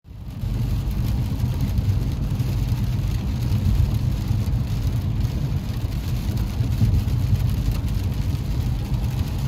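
Steady road noise inside a moving car on a rain-soaked highway: a low drone from the tyres and engine, with the hiss of the wet road.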